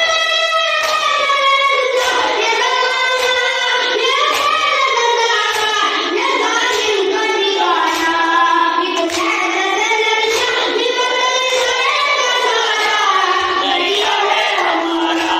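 A boy's voice reciting a noha, the sung Shia lament of Muharram, into a microphone in long, gliding held phrases. Mourners' chest-beating (matam) keeps a steady beat under it, about three strikes every two seconds.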